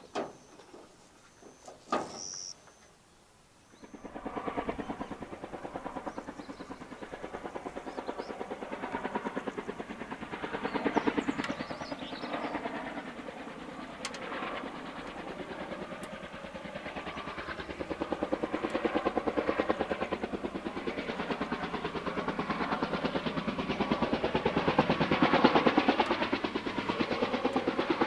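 Kaman K-MAX helicopter approaching, its intermeshing twin rotors beating in a fast, even throb that starts about four seconds in and grows louder as it comes in to land.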